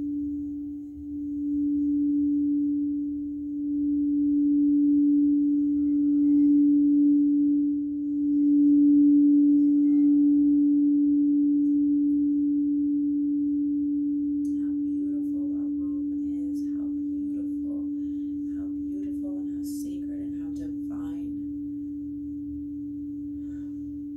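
Frosted crystal singing bowl played with a mallet: one steady ringing tone that swells several times over the first ten seconds, then rings on and slowly fades.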